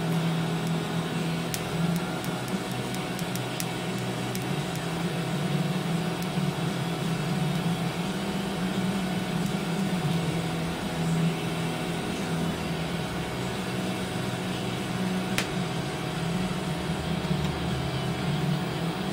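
TIG welding an exhaust tube: the arc and welder make a steady, continuous hum with a light hiss over it.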